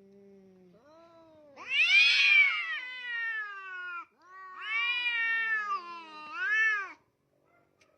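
A domestic cat giving two long, drawn-out meows, each lasting a couple of seconds, with the pitch bending up and down; a fainter call leads into the first, and the second ends in a final rise and fall.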